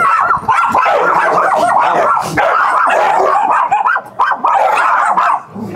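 Dogs barking and yapping in quick, overlapping barks, stopping about half a second before the end.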